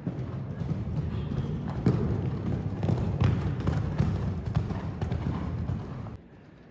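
Horse cantering on sand arena footing: dull, irregular hoofbeats, loudest as it passes close, cutting off suddenly about six seconds in.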